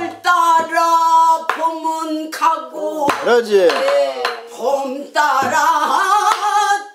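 Korean folk singing in the southern Namdo style: a voice holding long, wavering notes with wide vibrato and sliding bends. A few sharp strokes mark the beat.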